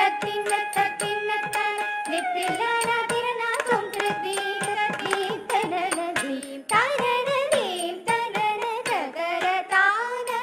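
Carnatic dance accompaniment: a singer and melody instruments hold long notes that glide and ornament between pitches over quick, steady mridangam strokes.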